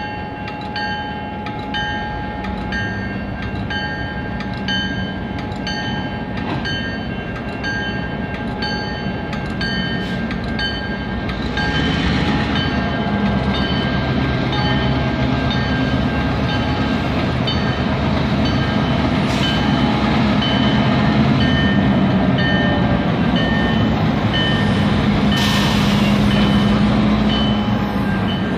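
CN freight train's diesel locomotives rumbling past a level crossing, with the crossing's warning bell ringing in a fast, even beat over them. The engine drone grows louder about twelve seconds in as the locomotives come close.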